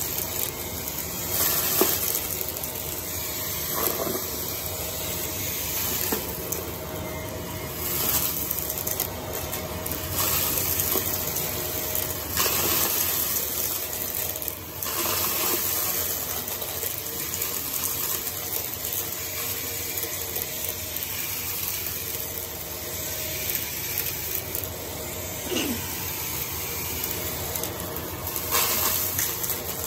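Vacuum cleaner running steadily over carpet while sucking up a thick, clunky debris mix, with a few sudden rattles as pieces go up.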